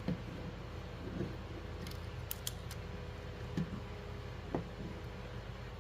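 Light, sparse clicking of plastic C-BITE garden clips as the looped spring torus built from them is handled and turned inside out, with a few sharp clicks about two to three seconds in, over a steady low hum.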